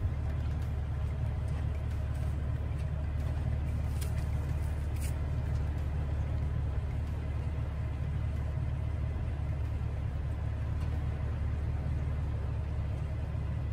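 A vehicle engine idling: a steady low rumble that does not change.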